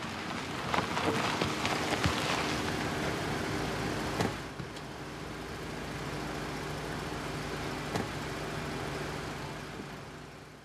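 A car driving slowly up a lane and approaching: its engine hums steadily under the hiss of its tyres on the road, with a couple of light knocks, and the sound fades near the end.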